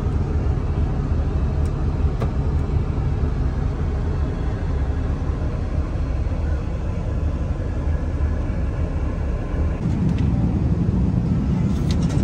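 Steady low rumble of cabin noise inside an Airbus A380 airliner, with its tone shifting and filling out about ten seconds in.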